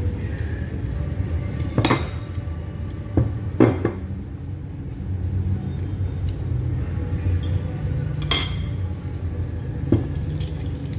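Table knife and fork clinking and scraping on a plate while pizza is cut, with several sharp clinks spread through, over a steady low background rumble.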